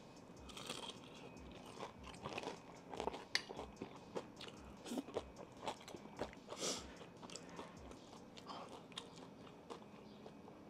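Faint, irregular crunching and mouth clicks of chewing a breaded fried chicken tender.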